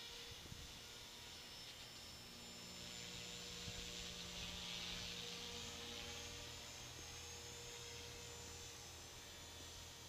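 Electric T-Rex 450-class RC helicopter (flybarless clone) flying at a distance: a steady buzzing whine of motor and rotor blades that grows louder around the middle as it comes closer, then eases off.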